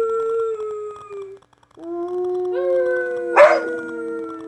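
Siberian husky howling: a long, slowly falling howl that ends about a second and a half in, then after a short pause a new, lower howl with a second, higher howling voice overlapping it and a short sharp yip about three and a half seconds in.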